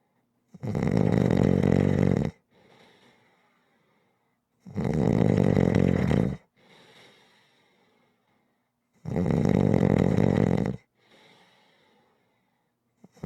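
Rhythmic snoring: three loud snores, each nearly two seconds long and about four seconds apart, each followed by a much quieter breath, with a fourth snore starting at the very end.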